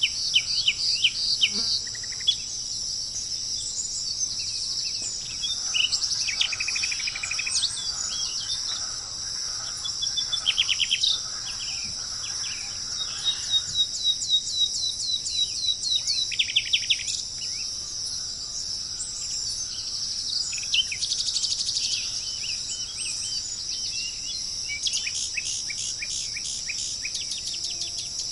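Songbirds singing in repeated rapid trills and quick chirping note series, over a steady high-pitched buzz of insects such as crickets or cicadas.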